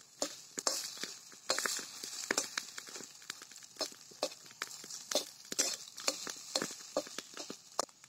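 Flat metal spatula scraping and clinking against a steel kadhai while scrambled egg fries and sizzles in oil. The strokes come irregularly, two or three a second, over a steady sizzle.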